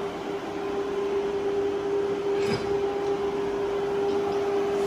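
Cooling fans of a 1500 W air-cooled handheld fiber laser welder running: a steady hum with one constant tone over airy fan noise.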